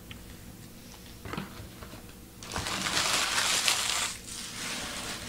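Crinkling of a foil baseball-card pack wrapper being torn open and crumpled by hand: a loud rough rustle of about a second and a half near the middle, then softer rustling.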